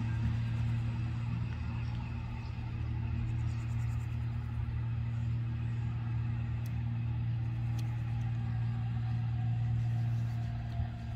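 Two coupled Appenzeller Bahnen 'Walzer' electric multiple units running along the line as they draw away: a steady low hum, with a faint whine falling in pitch near the end.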